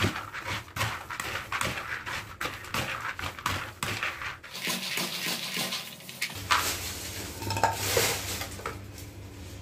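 Fried peanuts being stirred and tossed with a metal slotted turner in a plastic basin: a steady, irregular clatter of rattling nuts and metal scraping, as seasoning is mixed into the freshly fried peanuts.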